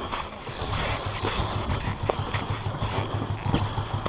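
Ural sidecar motorcycle's flat-twin engine running steadily with a low, pulsing note as it crawls through deep water on a swamp log track, with a few faint clicks.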